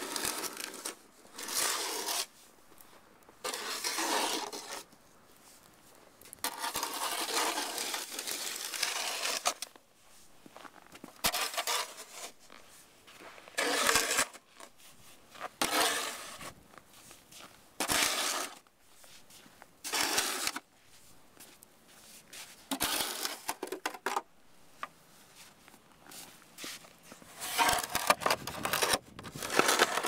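A snow shovel scraping along pavement and scooping heavy snow, in repeated strokes about every two seconds with a longer scrape early on.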